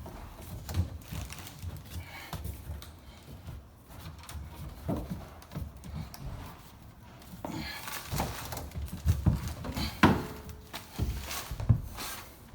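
Irregular knocks, clunks and handling noises from plumbing work under a sink, with the sharpest knocks in the last few seconds.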